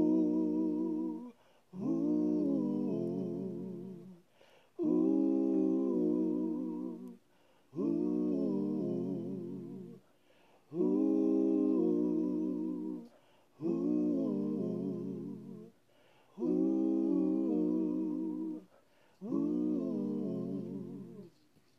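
A man singing a cappella in layered harmony with himself: wordless 'oo' phrases with vibrato, about eight held phrases with short breaths between.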